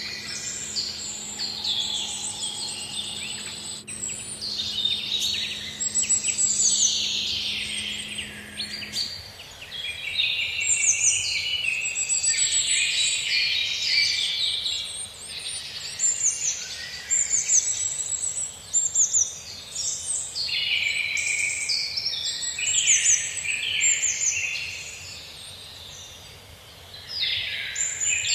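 Many small songbirds chirping and trilling at once in a dense chorus of quick, overlapping high notes, easing off briefly near the end. A faint steady low hum underneath stops about a third of the way in.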